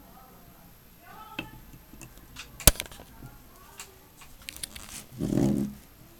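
Handling noise from a decorated glass bottle being picked up, turned and stood back down. Scattered clicks and knocks, a sharp knock about two and a half seconds in, and a duller, longer thump near the end.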